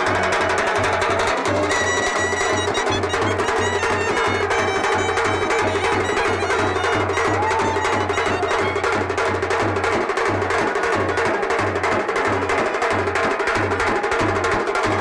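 Loud drum-led music for an Indian wedding procession: a steady low beat under dense, fast percussion strokes, with a few held higher tones over it.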